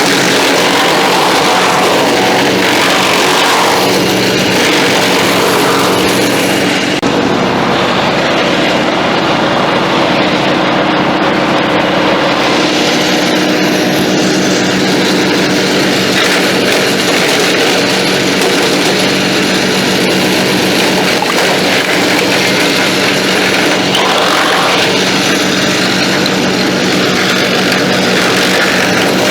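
Crytec wood chipper running steadily at full speed with its engine humming, its freshly replaced blades chipping material that it now draws in by itself; the chipping noise eases for a few seconds about a third of the way in, then picks up again.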